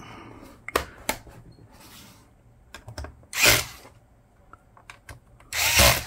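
Metabo HPT cordless screwdriver driving the laptop's bottom-cover screws in two short runs, one about halfway through and one near the end, with a few small clicks and taps of plastic parts and screws between them.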